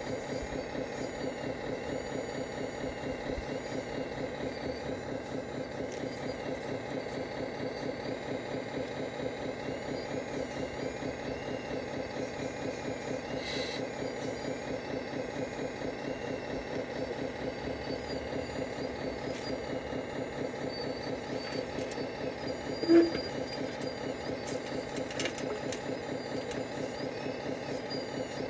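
Radio-controlled model excavator running steadily while it digs, an even, rapidly pulsing engine-like drone. A short, sharp, louder sound stands out about 23 seconds in.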